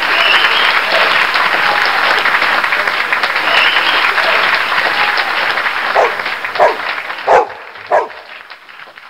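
A crowd applauding, the applause dying away over the last few seconds. While it fades, a dog barks four short times, about two thirds of the way through.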